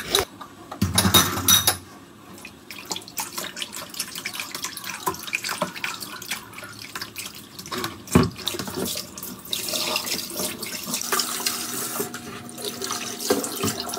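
Kitchen tap running into a bowl of water in a sink while hands swish and rub pieces of raw meat, washing them with salt, with splashing.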